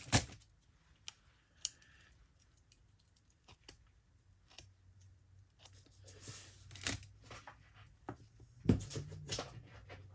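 Scattered small clicks and taps of a pen, scissors and paper being handled on a craft table, with a short rustle about six seconds in and a sharper click near the end.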